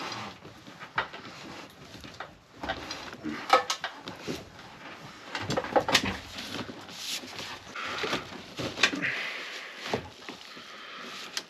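Heavy 2/0 copper service-entrance cable being pulled through wood framing: irregular rubbing and scraping with scattered knocks as the thick cable drags over the studs and joists.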